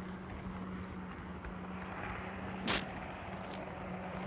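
Steady hum and hiss from an onboard wireless microcamera on a running N-scale model train. A sharp click comes a little under three seconds in, and a fainter one follows about a second later.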